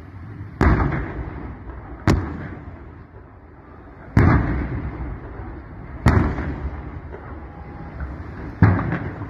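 Five sharp explosions about two seconds apart, each loud bang dying away over about a second, from a large blaze.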